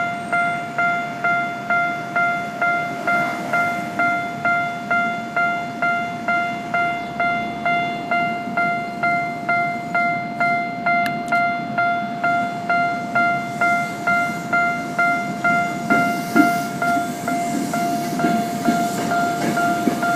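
Japanese level-crossing warning bell ringing steadily, with even electronic dings about twice a second. From about 16 s in, the rumble and clatter of a Ginza Line subway train moving across the crossing rises under the bell.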